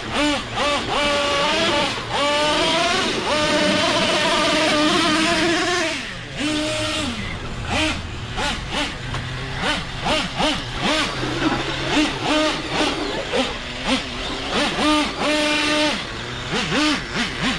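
Traxxas Revo 3.3 nitro RC truggy's small two-stroke glow engine revving as it is driven. A sustained high-revving run for the first several seconds falls off about six seconds in, followed by short, repeated throttle blips that rise and fall.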